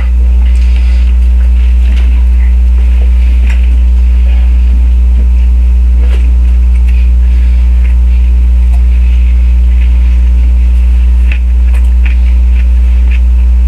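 Loud, steady low electrical hum with a stack of steady overtones, with faint scattered clicks and scrapes over it.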